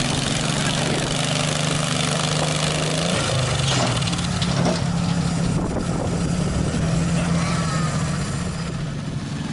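Modified lawn tractor engine running steadily, its pitch changing about three seconds in.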